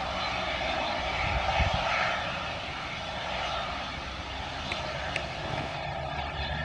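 AgustaWestland AW139 helicopter running steadily on the ground with its main rotor turning before lift-off: the sound of its twin turboshaft engines and rotor.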